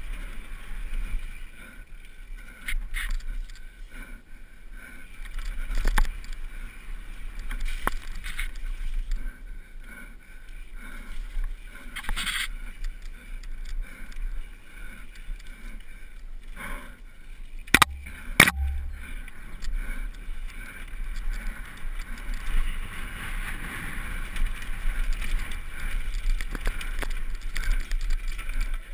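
Downhill mountain bike rattling over a rough dirt trail, with a steady rush of tyre and wind noise. Sharp knocks from bumps come every few seconds, the loudest pair about 18 seconds in.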